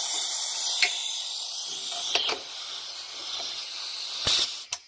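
Compressed air hissing from an Aldi air compressor, loud at first and then dropping to a fainter hiss a little over two seconds in. A couple of sharp knocks near the end.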